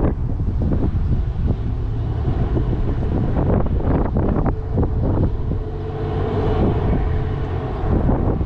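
Wind buffeting the microphone: a loud low rumble with irregular gusty thumps, over the sound of road traffic at an intersection.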